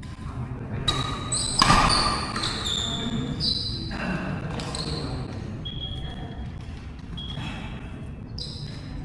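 Badminton rally: short, high squeaks of shoes on the court floor, with sharp racket hits on the shuttlecock, the loudest about two seconds in.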